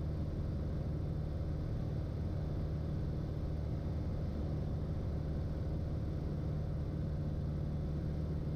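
Light aircraft's piston engine droning steadily in cruise, heard inside the cockpit.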